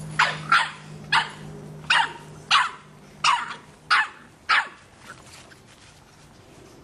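Boston Terrier puppy barking at a soccer ball: eight short barks, about two a second, stopping after about four and a half seconds.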